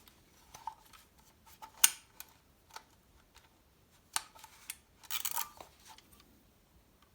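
Mechanism of a Zenit 3M 35mm SLR camera being handled and tried out. There are sharp single clicks a couple of seconds apart, the loudest about two seconds in, and a short run of rattling clicks about five seconds in.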